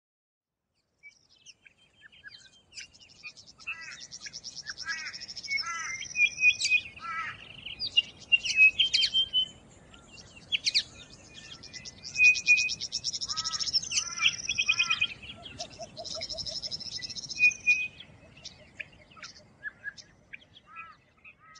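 Several songbirds singing, with fast trills and repeated chirps and whistles overlapping one another, starting about a second in.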